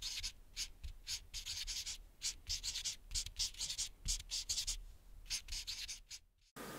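Pencil scratching on paper in short, irregular strokes, a sketching sound effect; it cuts off abruptly near the end.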